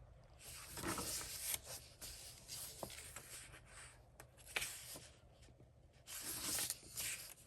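Paper pages of a softcover coloring book being handled and turned, several separate rustles of paper sliding and brushing.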